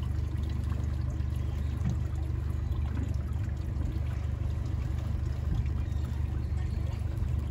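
Yamaha four-stroke 40 hp outboard motor idling steadily, a low even hum.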